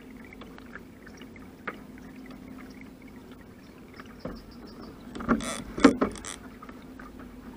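A steady low hum with a few light knocks, then about five seconds in a second-long run of loud rattling clicks: a KastKing Rover 40L baitcasting reel's drag giving line as a trout strikes the trolled line.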